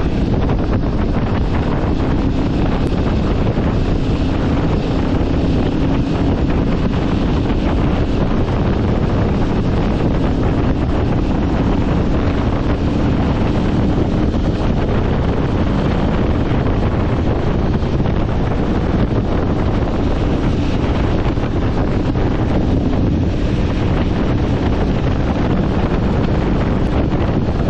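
Heavy wind buffeting the microphone at riding speed, with the steady drone of the Aprilia Tuareg 660's parallel-twin engine underneath.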